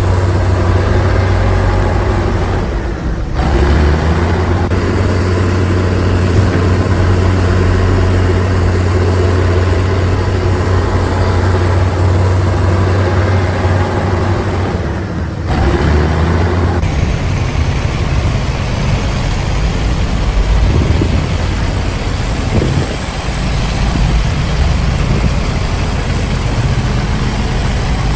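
Heavy diesel engine of earth-moving road-construction machinery running steadily under load, with a deep, even drone; the sound breaks off and resumes about three seconds in and again about fifteen seconds in.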